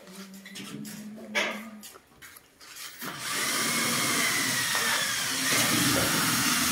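Light handling clicks, then about three seconds in a power tool starts abruptly and runs steadily with a loud, hissing motor noise as work goes on at the metal ceiling frame.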